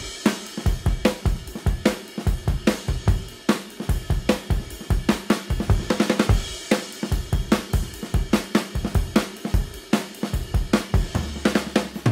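Background music with a steady drum-kit beat: kick, snare and hi-hat.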